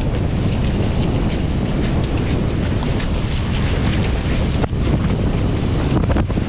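Strong wind buffeting the microphone in a steady low rumble, with the wash of shallow sea water behind it.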